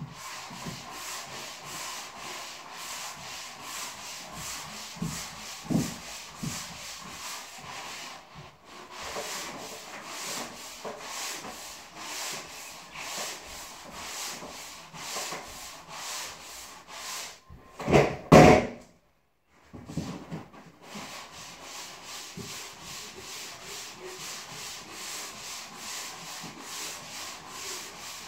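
Hand-sanding a drywall surface with sandpaper: even, rhythmic back-and-forth scraping strokes at about two a second. About two-thirds of the way in there is one brief, louder knock, then a pause of about a second before the strokes resume.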